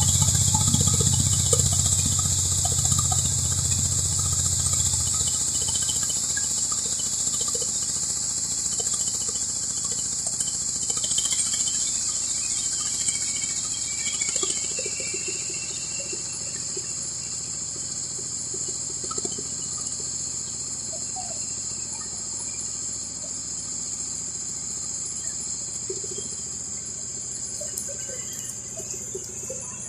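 A mini combine harvester's engine running, its low hum fading away after the first five seconds, over a steady high-pitched insect chorus from the field.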